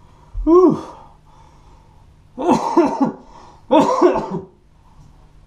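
A man coughing and groaning in three short bursts, winded after a 12-mile run: first a single falling groan, then two choppy runs of voiced coughs.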